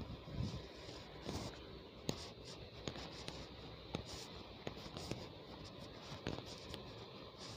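Faint handling noise: rubbing and scratching with scattered light clicks at uneven intervals.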